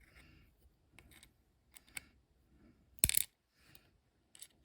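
Small metal lock parts clicking and clinking as they are handled, with one louder metallic clink about three seconds in.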